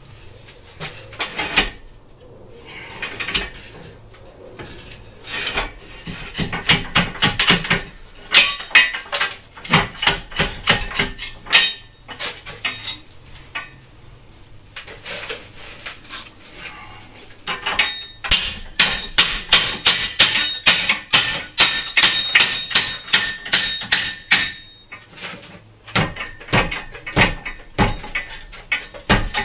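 Hammer blows on a steel chisel, knocking out old, crumbly brickwork: sharp metallic strikes about three a second, in long runs with short pauses between them.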